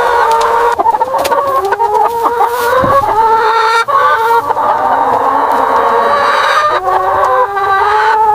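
A flock of chickens calling loudly, many overlapping drawn-out calls and clucks at once.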